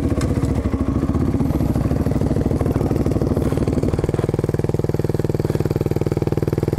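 Motorcycle engine running on the trail; its pulsing note settles into a steady, even rhythm about four seconds in.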